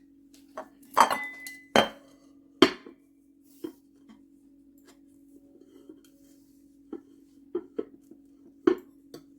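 A bowl being handled and knocked against a table while it is measured: about ten sharp knocks and clinks, the loudest in the first three seconds, one of them ringing briefly. A faint steady hum runs underneath.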